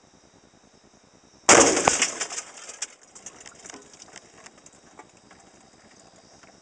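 A single 12-gauge shotgun shot about a second and a half in: one sharp blast that dies away over about a second, followed by faint scattered crackles.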